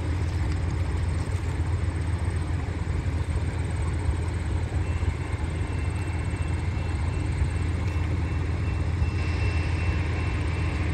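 Steady low rumble of a VIA Rail passenger train's diesel locomotive running as the train stands at the platform. A faint steady high-pitched tone joins about halfway through.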